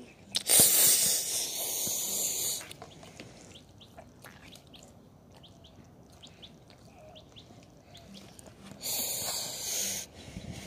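Two loud rushing hisses: the first lasts about two and a half seconds, and a shorter one of about a second comes near the end. Faint bird chirps sound in the quiet between them.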